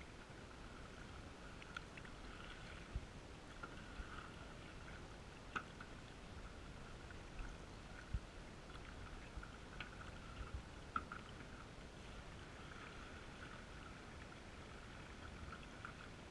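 Canoe being paddled, heard muffled through a GoPro's waterproof housing: a faint steady wash of water with scattered sharp knocks, most of them in the middle stretch.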